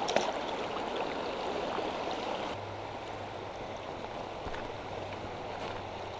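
Shallow, rocky river riffle flowing: a steady rush of water over stones.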